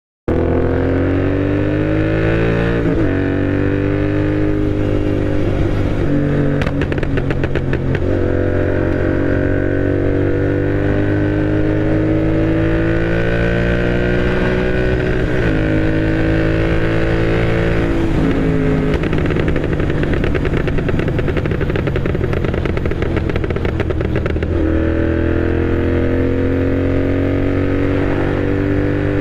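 Royal Enfield GT650's 648 cc parallel-twin with a tuned Moto Torque aftermarket exhaust, riding under load. The engine note climbs and drops several times as the throttle is worked and gears change, with a quick run of exhaust crackles about seven seconds in.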